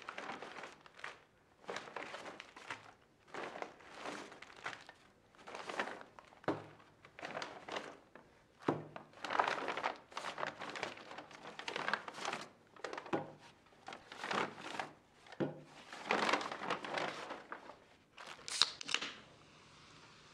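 A brown paper grocery bag rustling and crinkling in repeated bursts as lunch items are pulled out of it, with a few dull knocks as items are set down on a wooden table.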